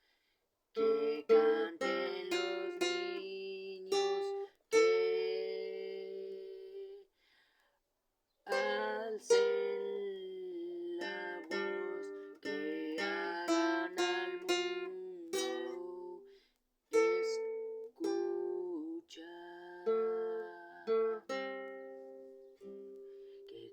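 Plucked string instrument, like an acoustic guitar or ukulele, playing a melody of struck notes and chords that ring and die away, with short pauses about 7 and 16 seconds in.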